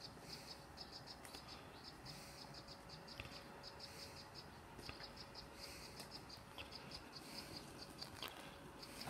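Quiet scene: rapid, high insect chirping in short runs repeats throughout, over a faint steady hum from a WORX Landroid robotic lawn mower driving across the grass.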